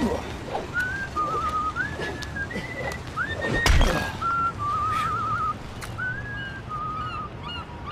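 Someone whistling a tune, a string of held notes with trills and slides up and down. Two heavy thuds cut in, one at the start and a louder one a little under four seconds in.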